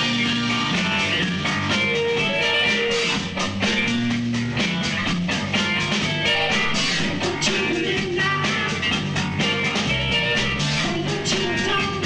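Live rock band playing an instrumental passage: electric guitar with drums keeping a steady beat.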